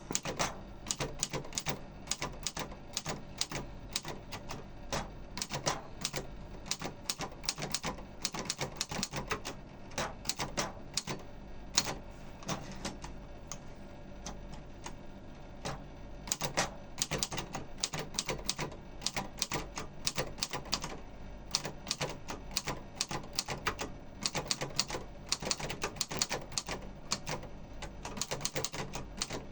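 Royal manual typewriter being typed on: a steady run of sharp, irregular key strikes, several a second, with a brief slower stretch about halfway through.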